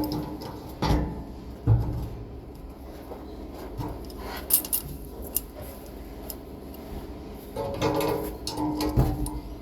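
Knocks and clatter of tools and parts being handled, a few sharp knocks early and around the middle. Plucked-string background music comes in near the end.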